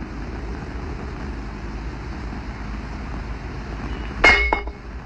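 A steady low background rumble, broken about four seconds in by a short, bright metallic clink with a brief ring.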